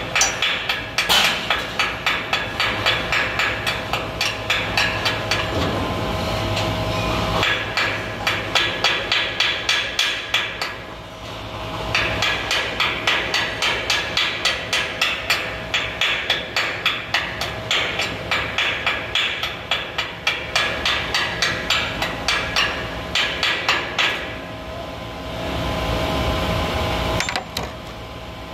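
Chipping hammer knocking slag off an overhead stick weld on a galvanized steel beam: rapid, sharp metal-on-metal taps, about two to three a second, with two short pauses, a little before halfway and near the end.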